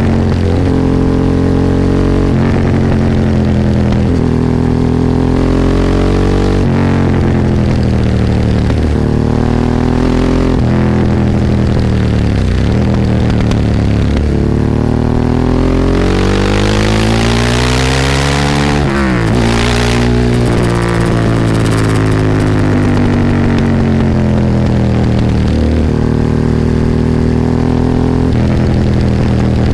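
Ducati 998's L-twin engine heard onboard while riding, its pitch climbing under acceleration and dropping at gear changes and when closing the throttle, several times over. In the middle it makes one long climb to high revs with a rising hiss, then falls away sharply.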